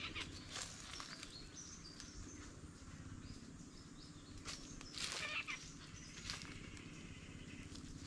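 Forest ambience: faint, short bird chirps, and a few crunching footsteps on dry leaf litter, the loudest a little past the middle.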